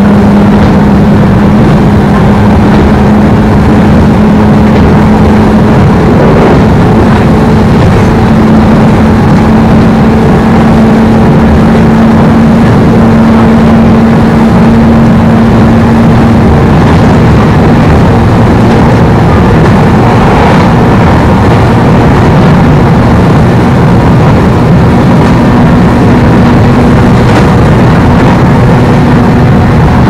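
Running noise inside a 103 series electric train carriage: the steady hum of the traction motors and gearing over the rumble of the wheels on the rails. The pitch of the hum shifts slightly a few times.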